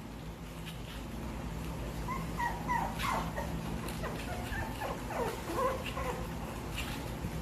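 Young puppies whimpering in short, high squeaky cries, many in quick succession from about two seconds in, several falling in pitch, over a steady low hum.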